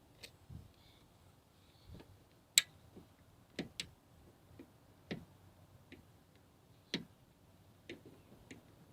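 Irregular sharp clicks and light knocks, the loudest about two and a half seconds in, from tools and plastic parts being handled while prying at a car door speaker.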